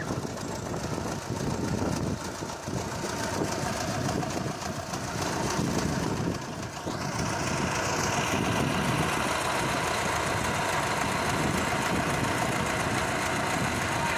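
Tractor engine running steadily. About seven seconds in the sound turns brighter, with more hiss, and stays that way.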